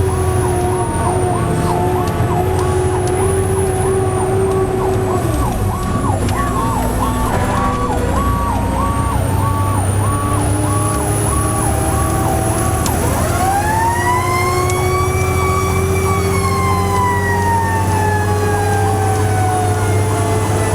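Fire truck sirens on an emergency run: one siren sounds a fast, repeating yelp of about three cycles a second. About two-thirds of the way through a second siren winds up sharply in pitch and then slowly falls away, over the steady low drone of the truck's engine.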